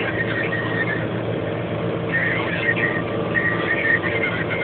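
Same Laser 150 tractor's diesel engine running steadily under load while pulling a disc harrow, heard from inside the cab. High-pitched wavering squeals come and go over it, several times.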